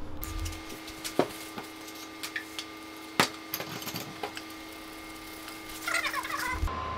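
Light clicks and knocks of a paper towel roll and a metal can being picked up and put down on a car's bonnet, with a sharp knock about three seconds in. Just before the end, a heat gun's steady blowing with a thin whine cuts in.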